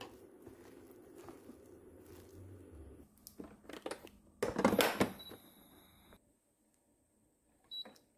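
A plastic rice paddle stirring sticky glutinous rice in an electric pressure cooker's inner pot. A few seconds in come knocks and a loud clatter as the cooker's lid is handled and shut, and near the end a short electronic beep from the control panel.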